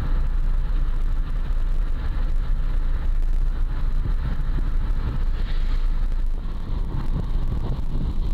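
Road and engine noise heard from inside a moving Peugeot car: a steady low rumble.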